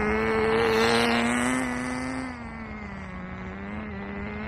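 Glow-engine 1/10 RC car running during its break-in, a steady high buzz that grows louder about a second in, then drops in pitch and level after about two seconds as the car goes by.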